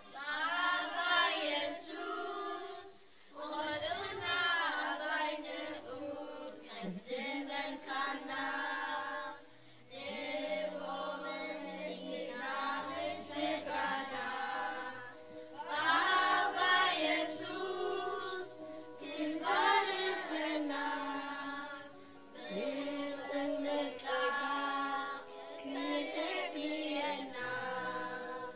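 A group of children singing a song together in Tigrinya, unaccompanied or nearly so, in phrases with brief pauses.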